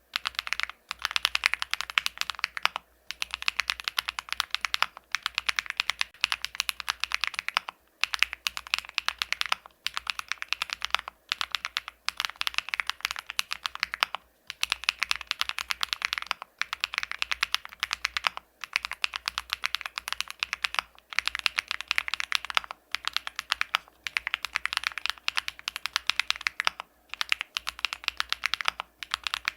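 Epomaker Tide49 40% mechanical keyboard, fitted with Epomaker Zebra linear switches on a polycarbonate plate, being typed on: fast, continuous keystroke clicks in runs broken by brief pauses every couple of seconds.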